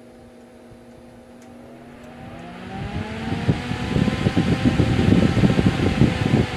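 All-metal solder fume extractor fan starting up at low speed: a whine rises in pitch about two seconds in as the blades spin up, then a loud, fast fluttering rattle sets in as it comes up to speed and runs.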